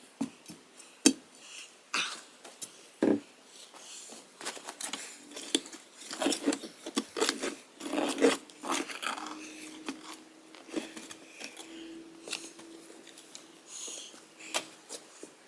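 Steel hand post-hole auger grinding and scraping against rocks down the hole, with irregular clicks and knocks, and a drawn-out squeal for several seconds in the second half; the sound of a large rock blocking the auger.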